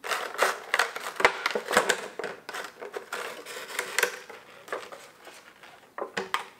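Clear plastic packaging tray crinkling and clicking in quick irregular bursts as a vinyl figure is worked out of it by hand, easing off about five seconds in, with a few more crackles near the end.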